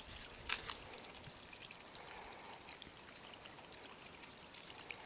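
Faint trickling of a small stream of water over mud-volcano ground, with scattered small drips and pops and one louder pop about half a second in.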